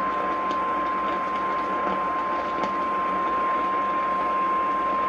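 Emergency Alert System attention tone on AM radio: a single steady high tone at about 1 kHz over radio static, announcing a tornado warning.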